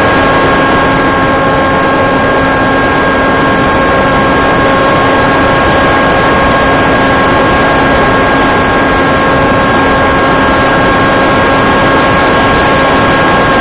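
Steady drone of an aircraft's motor and rushing airflow, heard from a camera mounted on the aircraft: a loud even rushing with a few constant whining tones over it that do not change.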